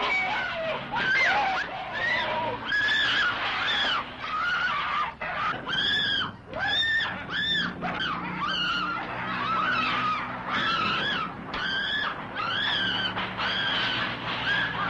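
A woman screaming in a long series of short, high, arching shrieks, over a low steady hum.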